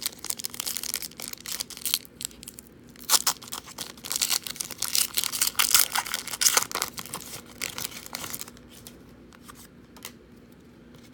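A foil 2018 Donruss football card pack being torn open and crinkled by hand, a dense crackling that is loudest in the middle and dies away about eight seconds in.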